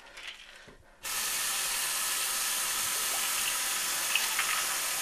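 Bathroom sink faucet turned on about a second in, after a few faint handling sounds, then water running steadily from the tap into the basin.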